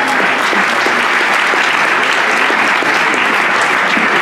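Theatre audience applauding, steady sustained clapping.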